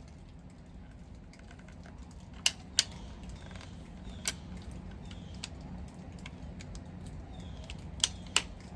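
About five short, sharp clicks, two close together a couple of seconds in, one more near the middle and a quick pair near the end, over a faint low steady hum.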